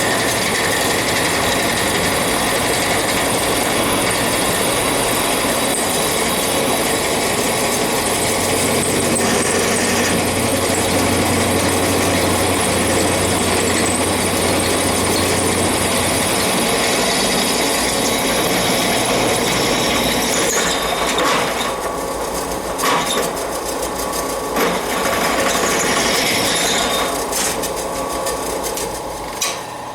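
Drill press running a 1/2-inch bit through a thick block of scrap steel: a steady machine whir with cutting noise. In the last several seconds the sound thins out, with a few sharp clicks.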